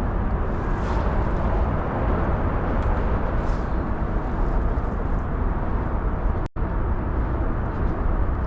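Steady wind buffeting the microphone, a dense low rumble with hiss, broken by a brief dropout about six and a half seconds in.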